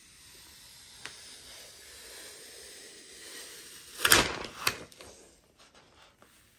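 Thin protective plastic film being peeled off a new computer: a soft rustle that builds for about four seconds, then two loud crinkling crackles in quick succession, followed by a few faint ticks.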